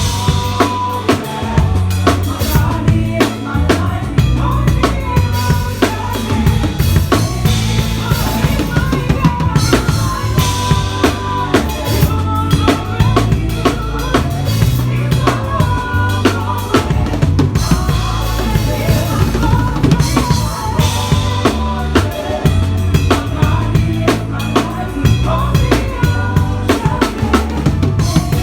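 Acoustic drum kit played live in a busy, steady groove of kick and snare, with other instruments of the band playing along.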